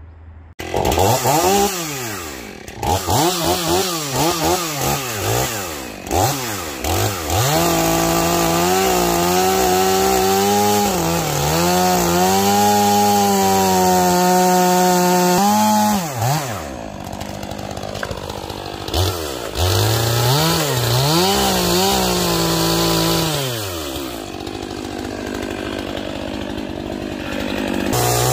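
Stihl chainsaw with a long bar, first blipped up and down in quick revs, then held near full throttle as it cuts through a thick block of wood, its pitch sagging and recovering under the load. About halfway through the revs drop off, then climb again for another long cut.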